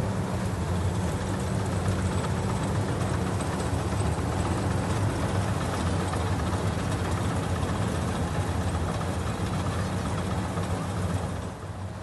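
Dasmesh four-wheel-drive combine harvester running steadily as it cuts paddy: a constant low engine hum under a broad mechanical noise, easing slightly near the end.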